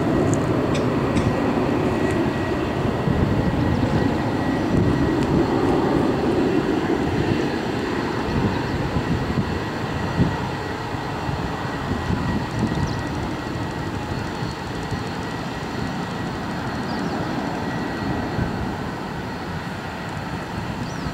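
Steady, distant rumble of an Airbus A340-200's four CFM56 jet engines on final approach, with no distinct events, easing slightly in level over the second half.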